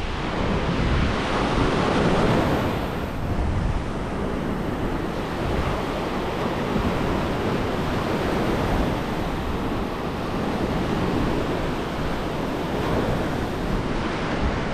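Ocean surf breaking and washing up the sand, one wave swelling loudest about two seconds in, with wind rumbling on the microphone.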